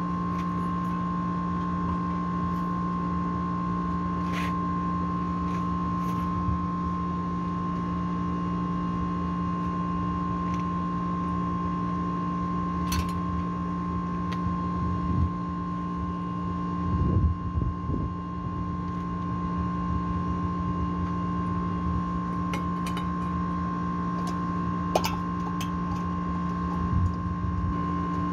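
A steady machine hum made of several constant tones runs throughout. Scattered light clicks and taps sound over it, and a brief low rumble of handling comes about two-thirds of the way through.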